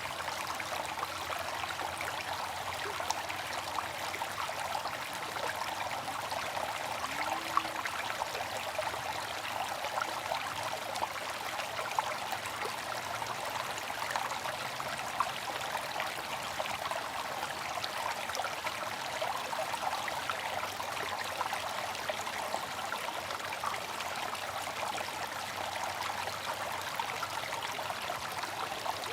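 Bamboo water fountain: water trickling and splashing steadily, with a few brief louder splashes.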